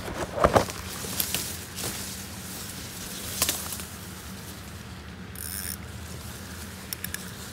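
Fishing reel being cranked, line winding in with a steady whir. There are a couple of knocks in the first second and another around three and a half seconds in, and a short high-pitched chirp about five seconds in.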